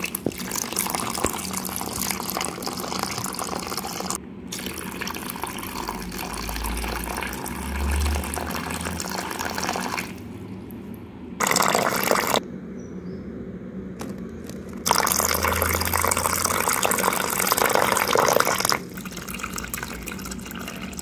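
Water being poured in a stream into a plastic-lined box of aquarium gravel and a plastic cup, splashing as it fills. The flow breaks off and resumes a few times, loudest briefly about eleven seconds in and again from about fifteen to nineteen seconds.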